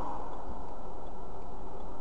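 Steady low rumble with faint, regular ticking about twice a second, heard from the dashcam vehicle.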